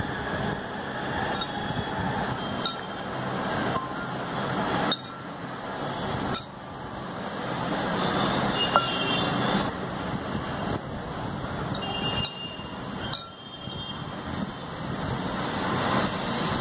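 Wet squishing of raw chicken legs being rubbed and turned by hand with ginger-garlic paste in a glass bowl, over a steady background of road traffic noise, with a few sharp clicks.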